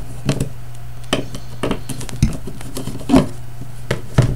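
Small clicks and knocks of a hand working the battery compartment cover of a Soviet DP-5A geiger counter and its captive screws, coming irregularly about half a dozen times, over a steady low hum.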